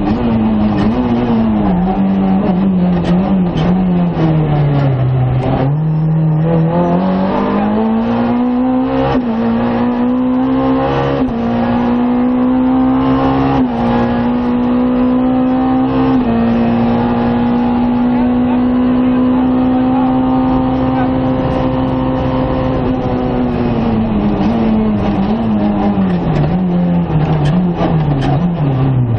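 Rally car's engine at speed, heard from inside the stripped cockpit. The revs fall at first, climb in steps through several gear changes, hold a steady high note for several seconds, and drop away again near the end.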